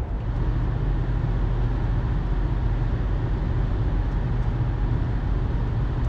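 Car driving along: a steady low road-and-engine rumble with no change in pace.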